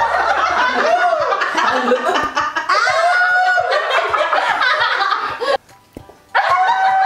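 A group of people laughing together loudly, with background music under it; the sound drops out briefly about five and a half seconds in, then the laughter picks up again.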